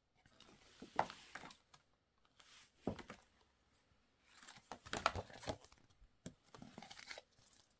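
Stiff cardstock photo cutouts being handled and laid down: rustling and light crinkling of paper in four short bursts, about two seconds apart.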